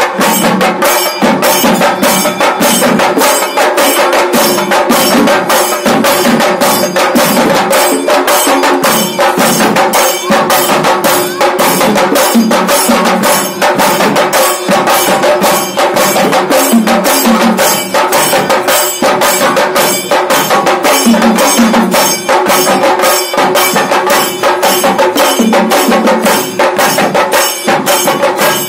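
Chende drums, the stick-beaten cylindrical drums of coastal Karnataka, played in fast, continuous strokes for a ritual dance, with a steady held tone sounding beneath the beat.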